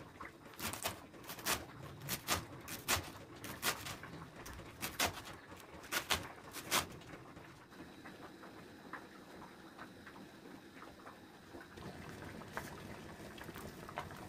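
Kitchen knife chopping through a bunch of green stalks on a cutting board: some fifteen sharp chops, often in quick pairs, over the first seven seconds. Near the end, a steady low bubbling of water heating in a pot.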